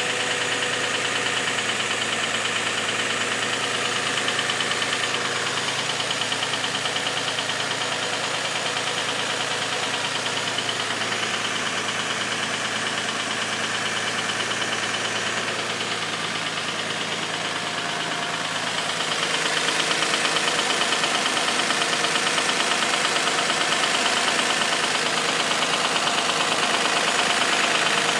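Infiniti G35's 3.5-litre V6 idling, with a knocking-type noise over the running engine and belts that the owner fears could mean an oil-consumption problem. The sound gets louder and brighter about two-thirds of the way through.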